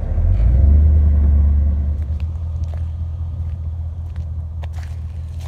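Plow truck's engine and drivetrain rumbling low, swelling during the first two seconds and then settling to a steady drone. A few faint clicks come near the end.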